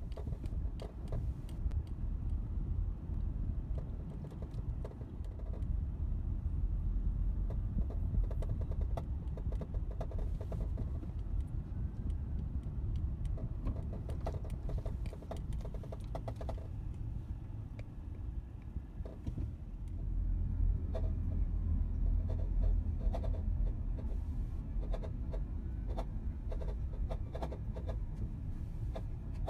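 Road and engine noise heard inside a car driving slowly: a steady low rumble with scattered small clicks and taps, the rumble swelling for a few seconds past the middle.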